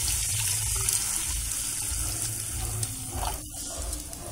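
Water being poured into a kadhai of hot oil and spices, hissing and splashing; the pour eases off about three seconds in.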